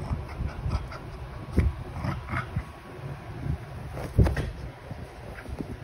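Two small dogs play-fighting, scuffling and bumping about on a bed with short, irregular dog noises. A single heavy thump about four seconds in is the loudest sound.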